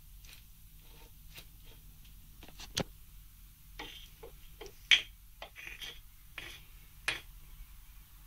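Irregular light clicks and knocks of metal parts being handled on a milling machine's belt drive, the sharpest about three, five and seven seconds in, over a faint steady hum.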